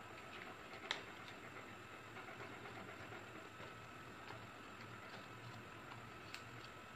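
Faint handling of a folded paper box: light rustles and small ticks, with one sharp click about a second in, over a steady background hiss.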